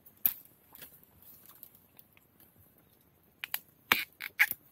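Young wild bamboo shoots snapped off by hand in a dense bamboo clump, making crisp cracks: one sharp crack just after the start, then a quick run of four or five snaps near the end.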